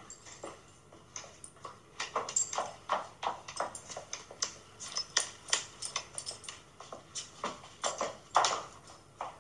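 High-heeled shoes clicking on a hard tiled floor, an uneven run of several steps a second with the loudest clicks near the end.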